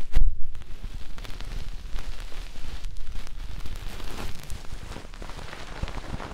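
Ear-cleaning stick scratching and rubbing inside the ear of a binaural microphone: a dense, irregular crackling with many sharp ticks and low rumbling thumps, loudest near the start and easing off towards the end.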